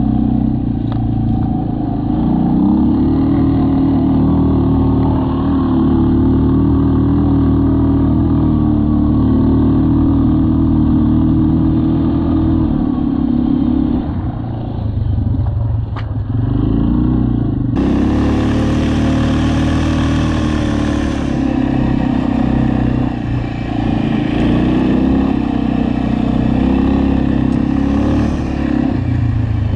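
Aeon Crossland 300 ATV's engine running under way, with small rises and falls in pitch as the throttle changes. It eases off briefly around the middle, then pulls again. Shortly after, the sound turns suddenly brighter, with added hiss over the engine.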